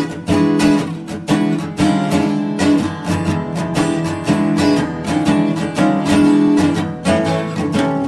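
Background music: an acoustic guitar strummed and plucked in a quick, steady rhythm.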